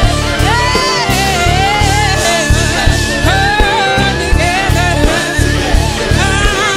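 A singer performing a pop song with a live band, the sung melody over a steady pulsing bass beat.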